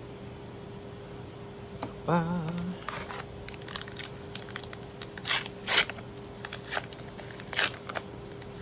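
Foil booster pack wrapper crinkling and tearing in a series of short crackly strokes, with a brief hummed voice about two seconds in.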